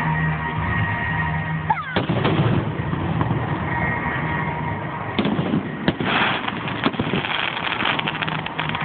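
Fireworks bursting over music: a sharp bang about two seconds in, two more a few seconds later, then a long run of crackling.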